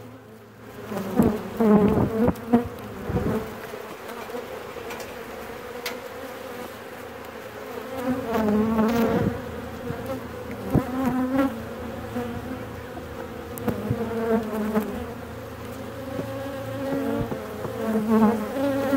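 A swarm of honey bees buzzing in a dense steady drone, with single bees passing by in rising and falling hums. The swarm is agitated, just cut down from its branch. A few sharp knocks come in the first few seconds.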